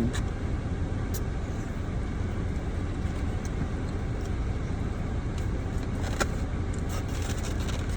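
Steady low rumble inside a car's cabin, with a couple of faint clicks, one about a second in and one about six seconds in.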